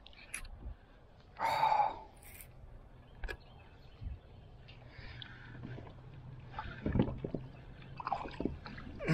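A hooked bass splashing at the surface beside a plastic kayak as it is brought in and landed, with a louder burst of splashing about one and a half seconds in, then scattered knocks and clicks of handling against the hull.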